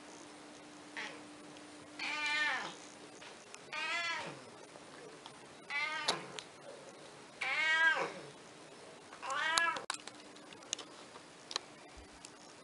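A domestic cat meowing five times, each meow under a second long and rising then falling in pitch, with a second or so between them.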